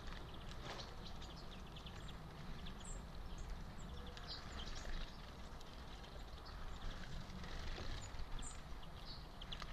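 A Eurasian red squirrel shelling and rummaging through sunflower seeds in a wicker feeder, heard as rapid small clicks and crackles. A few high, brief bird chirps and a low wind rumble sit underneath.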